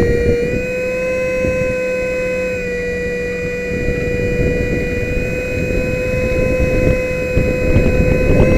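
Brushless 64 mm electric ducted fan of an RC jet, whining steadily with only small shifts in pitch, heard from an onboard camera with wind rushing over the microphone.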